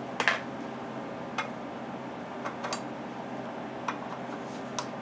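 A handful of sharp, scattered metal clicks and clinks of hand tools against a small Briggs & Stratton engine and the bench, the loudest just after the start, over a steady low hum.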